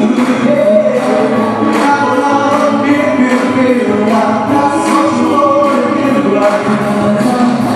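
Live band performing an upbeat pop song, with male and female singers singing together over a steady beat.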